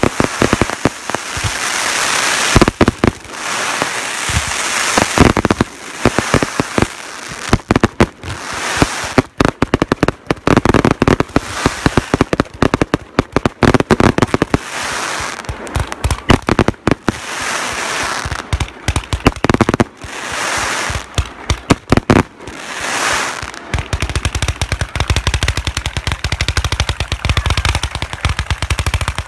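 Fireworks display at full pace: dense, rapid crackling and popping over a steady hiss from fountains and crackling star effects. From a few seconds before the end the crackle packs tighter over a low rumble, then stops abruptly.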